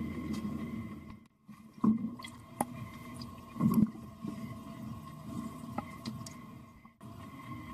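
Pool water heard through a submerged microphone: muffled sloshing and gurgling over a faint steady hum. A swimmer's exhaled air bubbles gush out louder about two seconds and about four seconds in.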